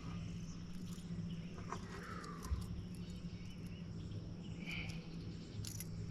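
Quiet outdoor ambience: faint chirping over a steady low hum, with a few small clicks and knocks.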